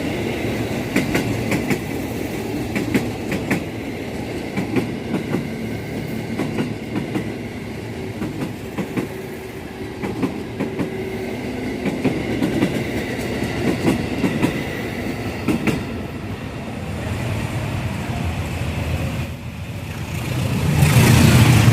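A train rolling past with a steady rumble, its wheels clicking over the rail joints. A louder low rumble swells up about twenty seconds in.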